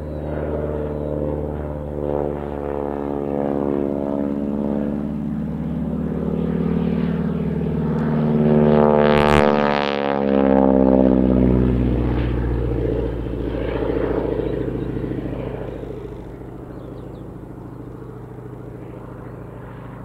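Noorduyn AT-16 Harvard's Pratt & Whitney R-1340 Wasp radial engine and propeller at display power in a flypast. It grows louder as the aircraft comes overhead about halfway through, then fades as it flies away.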